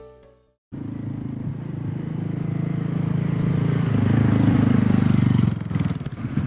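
Honda CT125 Hunter Cub's single-cylinder four-stroke engine running with a fast, even firing beat, growing louder over a few seconds, then easing off near the end and stopping abruptly.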